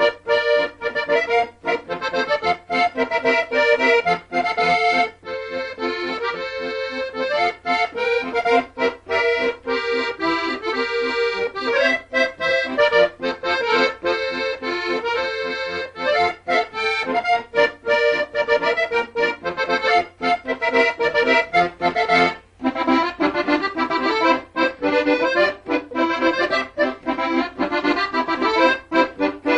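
Instrumental background music with held chords and a steady beat, pausing briefly about three quarters of the way through.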